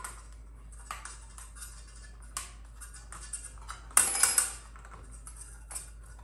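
Metal hex key clicking and scraping in the sabre's pommel nut as it is turned to tighten the handle onto a new blade, with a louder clatter of metal about four seconds in.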